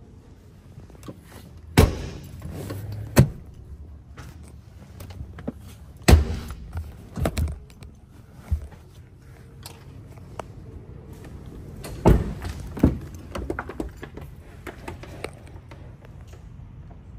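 A series of loud thunks and clunks, about five main knocks with rustling and clatter between them, from an SUV's doors and interior being handled.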